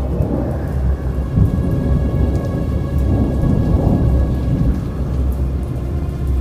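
Thunder rumbling over steady rain, the rumble swelling about one and a half seconds in and again around four seconds.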